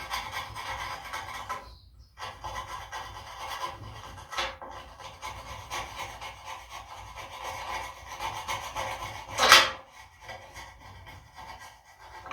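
Hand scraping or scrubbing on a surface, a continuous rasping with a short pause about two seconds in and one louder scrape near the end, typical of working old grease off a vehicle frame.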